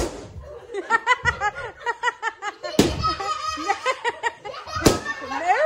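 Laughter with two sharp latex balloon pops about two seconds apart, the balloons burst by being sat and stamped on. The laughter is a quick run of ha-ha bursts before the first pop.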